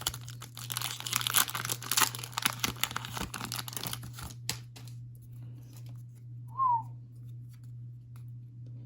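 Foil wrapper of a Dragon Ball Super card game booster pack crinkling and tearing as it is ripped open, for about four and a half seconds. About two-thirds of the way through comes one short falling whistle-like note.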